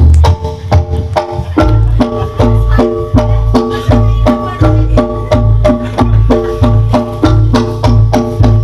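Reog gamelan accompaniment played live: tuned percussion strikes repeating about three times a second over drums and a deep, heavy beat. The low beat becomes fuller about a second and a half in.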